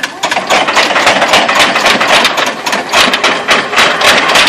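Flattened corrugated cardboard sheets sliding off a forklift's forks and slapping down onto a pile on concrete, a fast irregular clatter of slaps, with the forklift running.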